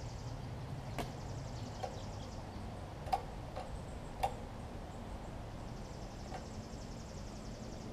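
A handful of small sharp clicks and taps, about five within the first half, as the stiff choke linkage on a Briggs & Stratton Vanguard generator engine is worked by hand; a faint steady high buzz runs in the background.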